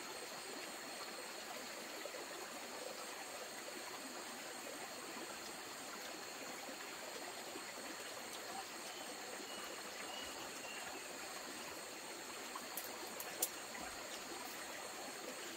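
Steady rush of running water, with a few faint clicks near the end.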